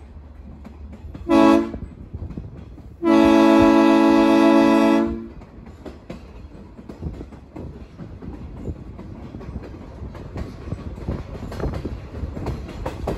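Diesel locomotive air horn of Union Pacific 844, an EMD GP30, heard from the caboose at the rear of the train: a short blast about a second in, then a steady long blast of about two seconds. After that the caboose's wheels rumble and click over the rail joints, growing louder near the end.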